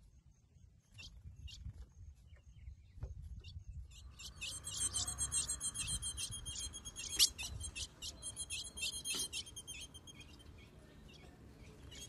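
Female ultramarine grosbeak calling: a few short, sharp, high chips, then from about four seconds a fast, continuous high-pitched twittering run of repeated notes. This is the female's solicitation call, begging the male to mate. A low rumble runs underneath.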